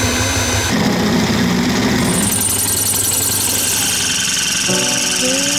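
Single-cylinder two-stroke chainsaw engine running steadily, with music coming back in near the end.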